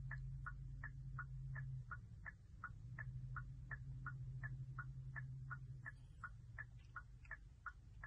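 2022 Kia K5's hazard-light indicator ticking steadily, about three ticks a second, with a low hum underneath that breaks off briefly about two seconds in.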